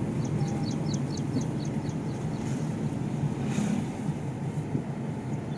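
A vehicle travelling along a road: steady low engine and road rumble with wind noise. A quick run of short high chirps sounds over it in the first two seconds.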